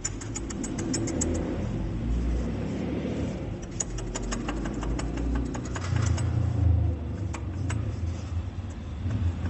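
Jeep Renegade engine running with a steady low rumble. Over it come three runs of rapid metallic clicking, from the water pump pulley being rocked by hand: the pump bearing has play, which the mechanic takes for the source of the engine noise.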